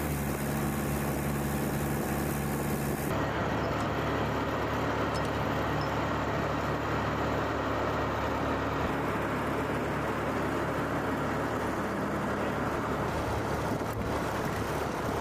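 Engines running steadily on an airfield runway: an even engine hum for about three seconds, then an abrupt change to a steady rushing engine noise over a low hum.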